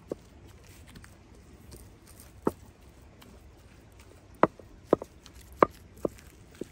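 Wooden masher pounding boiled potatoes on a ceramic plate: short, sharp knocks where it strikes through to the plate, about eight of them, most in the second half.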